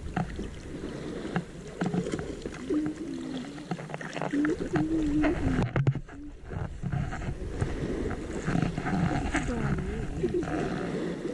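Water splashing and sloshing around a camera held at the surface by someone swimming, with many short splashes and knocks. The high sounds drop out briefly a little past halfway.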